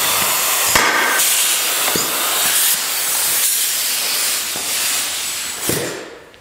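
Pneumatic pop-rivet gun hissing steadily with escaping air while it sets a 3/16 rivet, with a few sharp clicks; the hiss fades away near the end.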